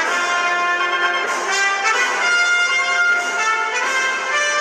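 Instrumental intro music: a melody of held notes, thin, with no bass.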